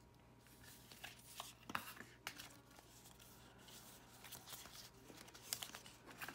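Faint rustling and sliding of paper card as the documentation sleeve and its cards from the iPhone X packaging are handled, with scattered light ticks. The sharpest ticks come about two seconds in and again about five and a half seconds in.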